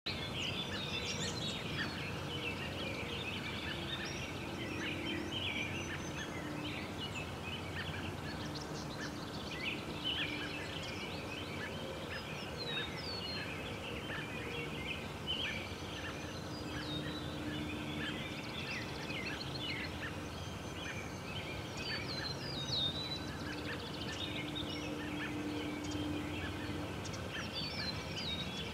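Many wild songbirds chirping and singing together, a dense overlapping chorus of short notes and trills, over a faint steady low hum.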